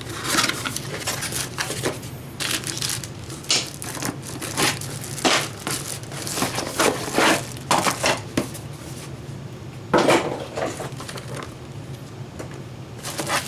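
A power supply being unpacked from its cardboard box and packaging, heard as irregular rustling and handling noise with short knocks. The loudest burst comes about ten seconds in.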